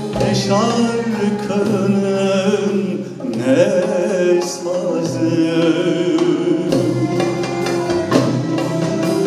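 A male soloist singing a Turkish classical song (şarkı), accompanied by an ensemble of violins, cello, oud and percussion.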